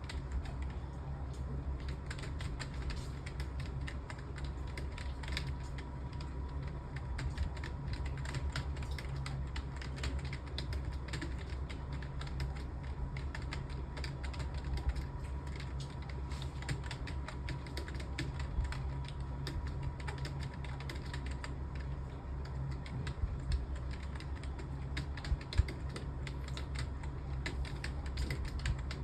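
Fast, continuous typing on a computer keyboard, many quick key clicks, over a steady low hum. One sharper knock stands out near the end.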